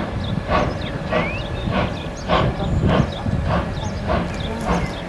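German Reko 01.5 express steam locomotive 01 519 working toward the listener, its exhaust beating in a steady rhythm of roughly one and a half to two strong chuffs a second. Birds chirp over it.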